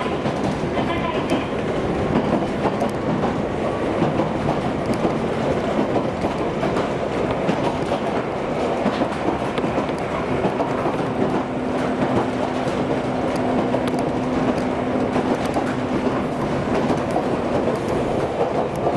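Running noise heard inside a Jōmō Electric Railway 700-series electric car (ex-Keio Inokashira Line stock) travelling at speed: a steady rumble of wheels on rails. A steady low hum joins in for several seconds in the second half.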